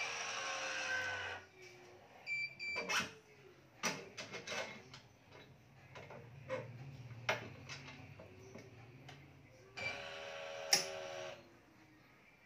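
Badminton racket being strung: a long Yonex BG66 string pulled hissing through the frame's grommets, once at the start and again near the end, with a run of sharp clicks from clamps and tools in between. A short electronic beep sounds a little after two seconds.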